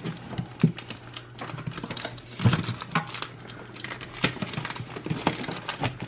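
Hands working the latch of a metal Pokémon TCG collector-chest lunchbox tin: irregular clicks, taps and knocks of metal.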